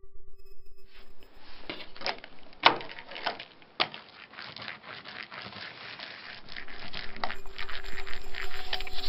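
Hand brayer rolling printing ink out on a glass plate: a sticky, crackling hiss broken by a few sharp knocks, the loudest about two and a half seconds in.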